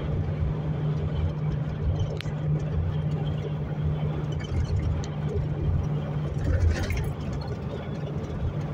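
Road and engine noise inside the cabin of a moving vehicle at highway speed, with a steady low hum, a brief click about two seconds in and a short hiss near the end.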